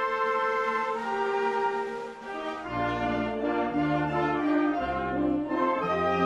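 Mexican brass band (banda filarmónica) playing a slow melody in long held notes, with deep bass brass coming in after about two and a half seconds.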